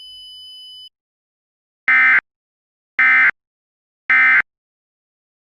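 Emergency Alert System end-of-message (EOM) signal: three short, identical bursts of digital data tones about a second apart. They mark the end of the alert broadcast.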